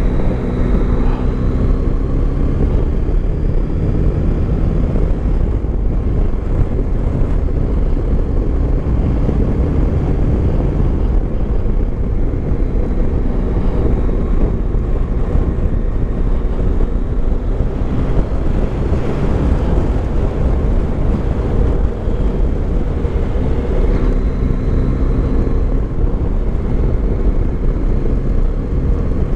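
Yamaha Tracer 9 GT's three-cylinder engine running steadily at road speed, with wind rumbling on the helmet-mounted microphone.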